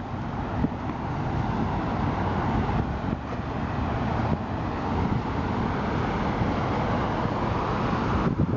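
Steady noise of road traffic from freeway and street traffic, an even rush of tyres and engines with no single vehicle standing out.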